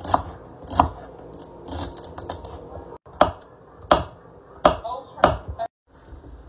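Kitchen knife chopping celery and carrots on a wooden cutting board: six sharp knocks of the blade hitting the board, two in the first second and four more from about three seconds in, roughly two-thirds of a second apart.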